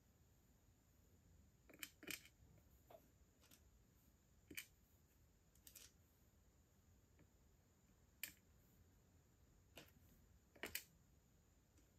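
Small, sparse clicks of metal tweezers picking plastic perler beads from a plastic tray and setting them on a clear plastic pegboard, about ten taps at irregular intervals, some in quick pairs.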